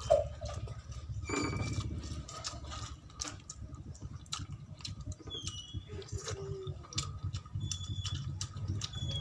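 Close-miked eating sounds: chewing and lip-smacking on fried fish and rice eaten by hand, a run of small wet clicks over a low steady hum.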